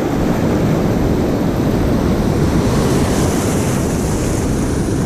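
Rough surf with swells and white water breaking against the rocks, a steady low rushing, with wind buffeting the microphone.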